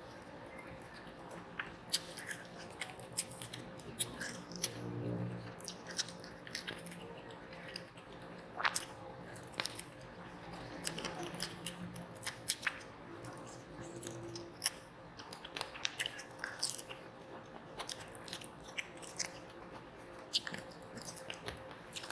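Close-miked chewing and biting of marinated lamb, with wet mouth smacks and sticky clicks coming at irregular intervals.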